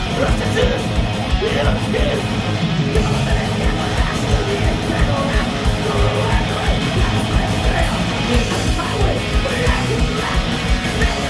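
Rock band playing live: electric guitar, bass guitar and drums with a steady driving beat.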